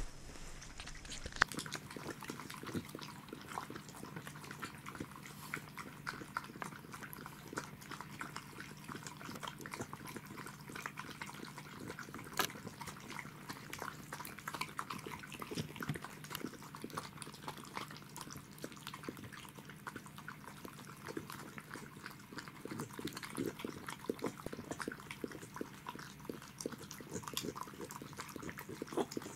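Pembroke Welsh corgi lapping broth and eating from a small foil dish: a fast, irregular run of wet licks, slurps and clicks that starts about a second and a half in.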